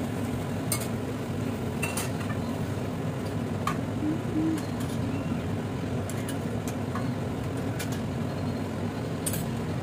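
A metal ladle clinking a few times against a steel pressure cooker while vegetables are stirred in, over a steady low hum.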